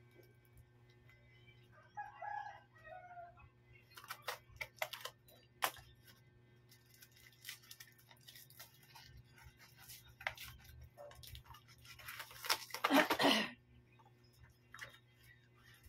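A paper-wrapped package being handled, with scattered clicks and rustles and a second-long burst of rustling paper near the end, the loudest sound. A rooster crows about two seconds in.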